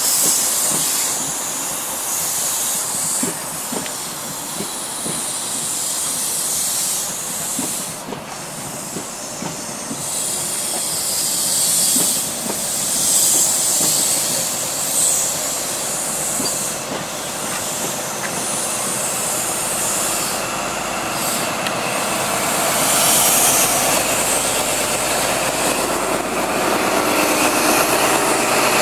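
A Class 43 HST's Mark 3 Pullman coaches rolling past as the train pulls out of a station, with a steady hiss and wheels clicking over the rail joints. Over the last few seconds the rear Class 43 power car's diesel engine grows louder as it draws level.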